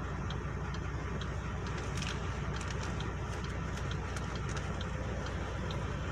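Vehicle engine idling steadily while parked, heard from inside the cab: an even low rumble with faint scattered ticks.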